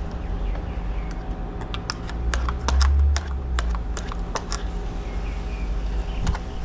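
Sharp metallic clicks and taps of a tool prying the old lock's latch piece out of the door edge, about a dozen in quick succession in the middle, over a steady low rumble.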